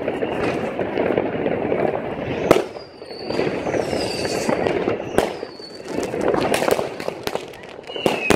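Many fireworks going off at once: a continuous rattle of crackling, sharp bangs every few seconds, and several whistles that fall in pitch.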